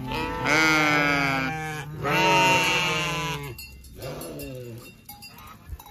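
Bleating from a penned flock of sheep and goats: two long, loud, wavering bleats in the first three and a half seconds, then a fainter one about four seconds in.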